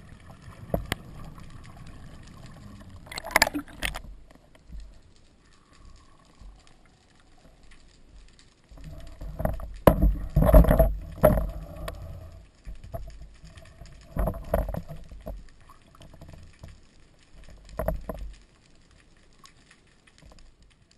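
Underwater water movement and handling knocks heard through a camera's waterproof housing, a low rumble broken by several louder splashy bursts: one a few seconds in, a cluster around the middle, and two more near the end.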